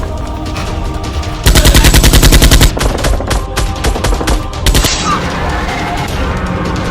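Rapid automatic gunfire sound effects over background music: a loud sustained burst about a second and a half in lasting just over a second, then scattered shots that stop near five seconds.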